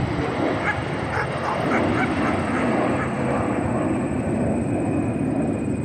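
Loud, steady engine noise of a passing airliner, its higher tones fading in the second half. Several short, sharp calls sound over it in the first half.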